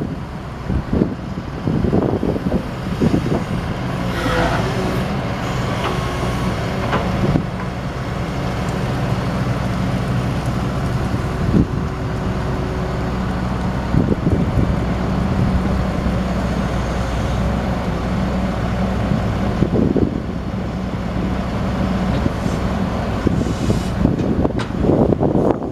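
Doosan DX255LC excavator's DL06P six-cylinder diesel engine running steadily, with a few short knocks and brief squeals over the engine hum.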